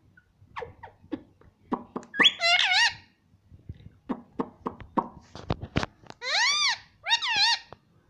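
Indian ringneck parakeet clicking and calling: a run of quick sharp clicks, a short warbling call about two seconds in, then two loud calls that rise and fall in pitch near the end.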